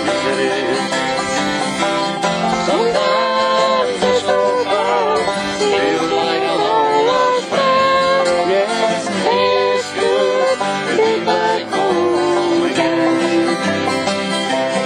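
Twelve-string acoustic guitar strummed in a steady rhythm, with a man's voice singing along.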